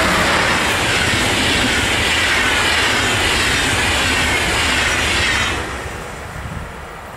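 Passenger coaches of an electric-hauled train passing at speed: a loud, steady rumble and rush of wheels on rail with a falling hiss, dying away about five and a half seconds in as the last coach goes by.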